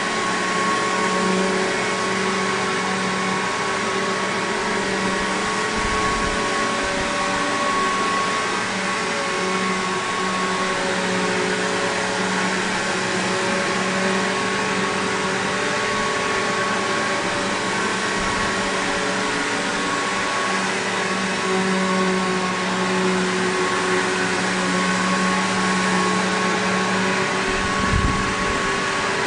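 Bissell PowerGlide Platinum (3545-2) bagged upright vacuum cleaner, Samsung-built, running steadily: a constant motor whine over airflow hiss, with a few brief low bumps.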